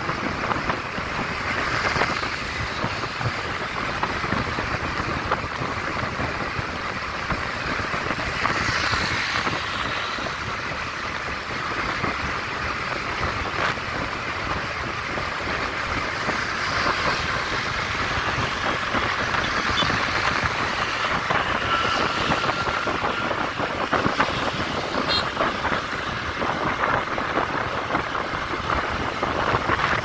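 Steady wind rush over the microphone of a moving motorbike, mixed with the running of motor scooter engines.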